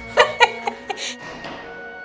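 Brief laughter in a few short bursts during the first second, over background music that continues with sustained notes.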